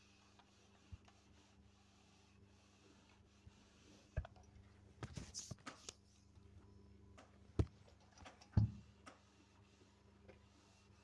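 Faint handling sounds of an electric dry iron pressing fabric on a table: light rubbing as it slides, and scattered knocks as it is lifted and set down, the two loudest about two-thirds of the way through.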